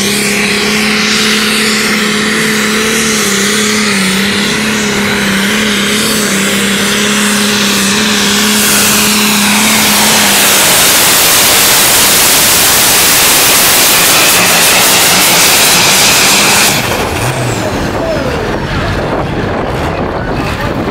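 Diesel pulling tractor at full throttle dragging a weight-transfer sled, its engine holding a steady high note. About nine seconds in, a loud rushing noise covers everything, then drops off abruptly about 17 seconds in.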